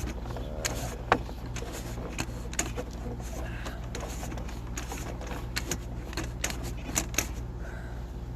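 Sewer inspection camera's push cable and camera head being fed through a drain pipe, with irregular clicks and knocks over a steady low hum.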